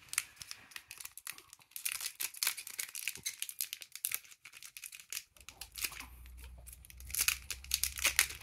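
Foil wrapper of a One Piece card game booster pack being torn and peeled open by hand, crinkling and crackling in quick irregular clusters.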